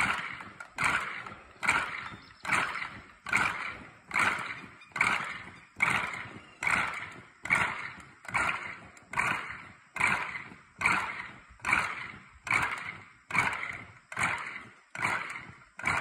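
Many people's feet stepping and scuffing in unison on a dirt and gravel ground during a marching drill, one beat about every 0.8 s, each step a short crunch that dies away.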